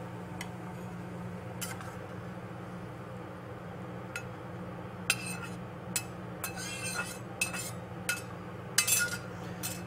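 Metal spatula clinking and scraping against a stainless steel skillet as salmon and sauce are slid out onto a plate: a few single clicks at first, then a quicker run of sharp clinks in the second half, over a steady low hum.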